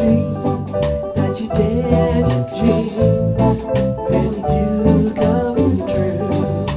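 Live band playing a rock and roll instrumental passage with drum kit, electric bass and electric guitar, a melody line carried over a steady beat.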